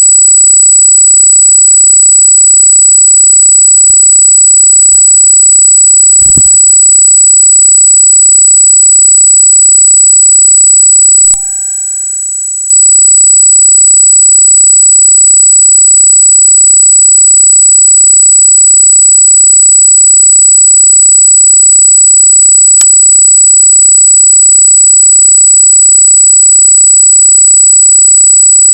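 Loud, steady high-pitched electronic squeal of several pure tones on the recording, of unknown origin. It drops in level and shifts for about a second a little before halfway, with a couple of faint clicks.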